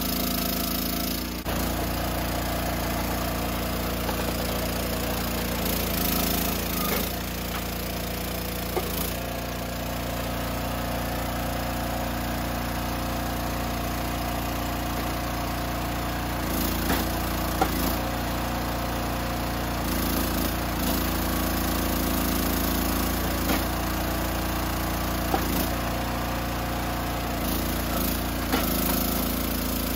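Small engine running steadily at a constant speed, its note shifting slightly a few times, with several brief sharp knocks over it.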